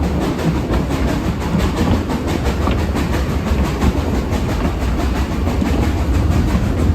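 Brecon Mountain Railway narrow-gauge steam train running: a steady, loud rumble with rail clatter.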